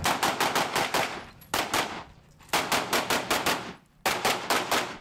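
Handgun fired rapidly in four quick strings of about two to seven shots each, some five to six shots a second, with short pauses between strings: a competitor shooting a practical-shooting stage against the clock.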